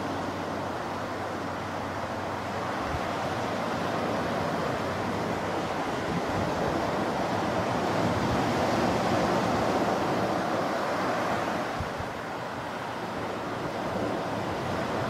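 Ocean surf breaking on a sand beach, a steady wash that swells about halfway through and then eases, with some wind buffeting the microphone.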